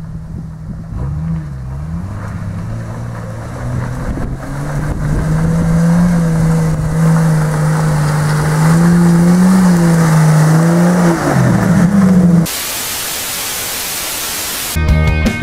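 Small electric motor and gearbox of a radio-controlled scale crawler whining, the pitch wavering up and down with the throttle. About twelve and a half seconds in it gives way to a loud steady hiss of static, and music starts just before the end.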